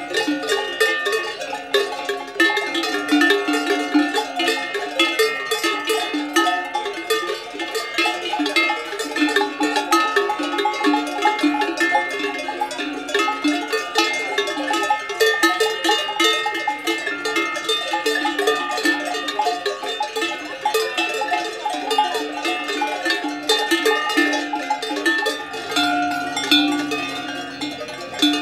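A herd's cowbells of many different pitches clanking and ringing in an irregular, overlapping jangle as the grazing cows move their heads.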